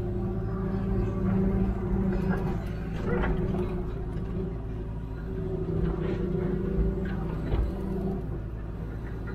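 Hitachi Zaxis 210W wheeled excavator's diesel engine running steadily as the hydraulics work the boom and bucket, heard from inside the cab, with a few short clunks about three, six and seven and a half seconds in.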